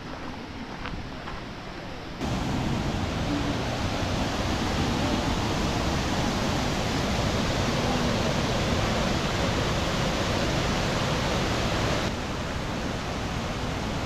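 Steady rushing of a waterfall. It jumps louder about two seconds in and drops back somewhat near the end.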